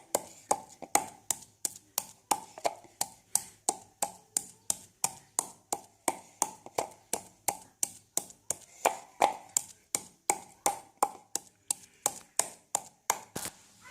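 A knife or cleaver chopping steadily on a wooden cutting board: sharp, evenly spaced knocks, about two and a half a second.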